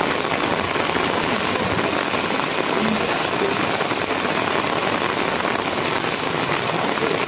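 Heavy rain falling on a wet brick-paved lane, a steady even hiss.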